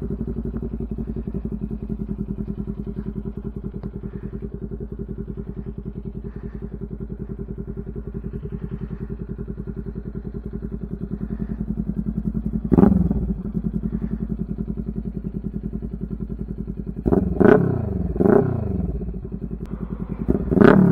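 Kawasaki Ninja 400's parallel-twin engine idling steadily through an aftermarket slip-on muffler, just after start-up. It is blipped once about thirteen seconds in, then three quick revs a few seconds later, and a bigger rev right at the end.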